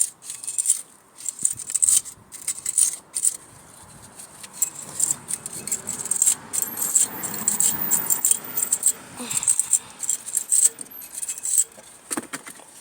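A small stiff brush scrubbing metal brake parts, in irregular scratchy strokes with light metallic rattling.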